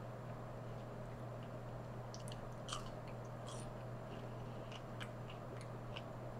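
A person chewing food close to the microphone, with scattered soft wet mouth clicks, over a steady low hum.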